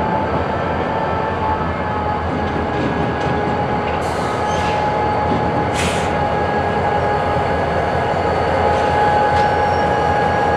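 Freight train moving through a rail yard: a steady rumble of rolling cars and locomotive, with a thin steady ringing tone from the wheels and two sharp metallic clanks about four and six seconds in.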